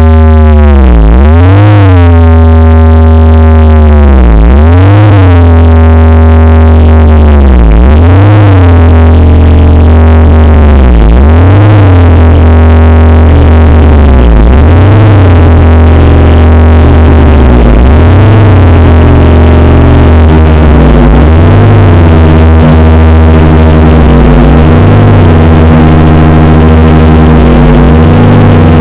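Synthesized 'space sound' drone made in Audacity: a loud low hum under a stack of tones that swoop down and back up about every three seconds. About two-thirds of the way through, a steady higher tone joins.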